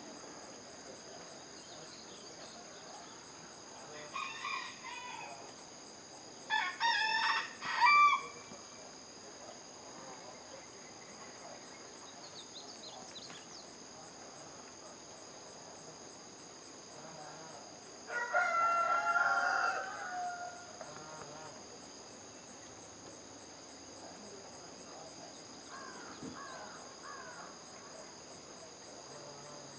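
A rooster crowing several times, loudest about a quarter of the way in and again past the middle, over a steady high trilling of insects.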